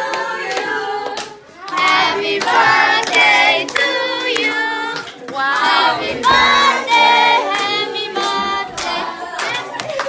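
A group of voices singing together, with hand claps throughout.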